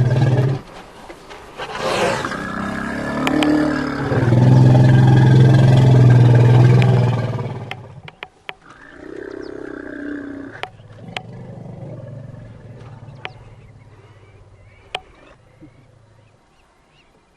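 African elephant calling with long, low, pitched calls a few seconds each, the loudest about four seconds in; then fainter calls and a few sharp clicks.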